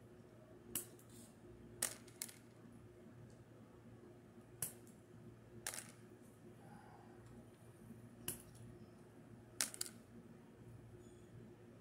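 Small wire cutters snipping and clicking as thin battery balance wires are trimmed: about seven sharp clicks at irregular intervals, over a faint steady hum.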